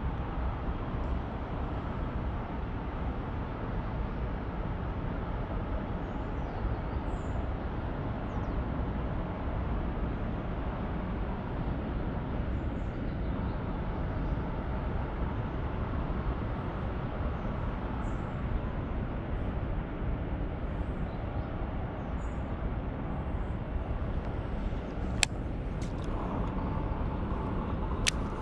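A steady, deep rushing noise, with a few sharp clicks near the end.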